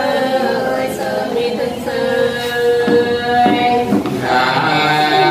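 Two men singing Nùng sli together, unaccompanied, in long drawn-out held notes; a new phrase starts about four seconds in.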